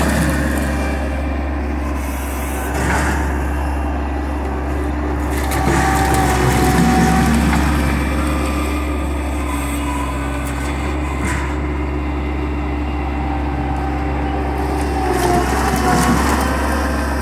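Bobcat skid-steer loader's engine running steadily while it pushes split firewood with its grapple bucket, swelling a little in loudness a few times under load, with a few knocks and clatters of the logs being shoved.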